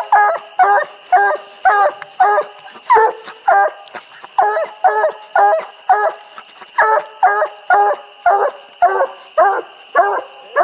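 Young bluetick coonhound barking up a tree in a steady rhythm, about two barks a second: the treeing bark of a hound with a raccoon up the tree.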